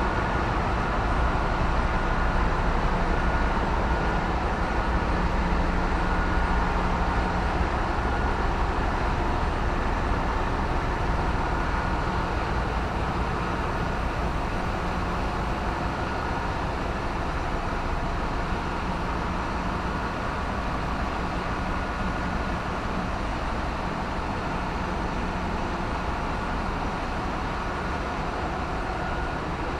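Engine-room machinery of a bulk carrier running: a loud, steady mechanical drone with a deep hum underneath and a few held tones. It eases slightly in level over the second half.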